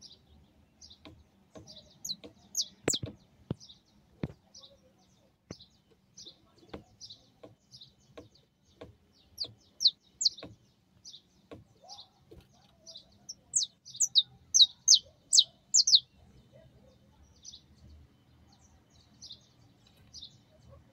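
Saffron finch chirping: short, high chirps about one or two a second, with a quicker run of louder chirps about two-thirds of the way through. A few sharp taps are heard among them.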